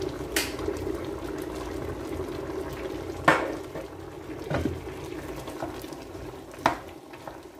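Pot of chicken curry simmering and bubbling, with four sharp clinks of kitchenware, the loudest about three seconds in.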